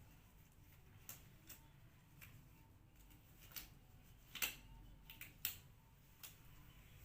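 Near silence broken by scattered faint clicks and light taps, about eight over several seconds; the sharpest comes a little past the middle.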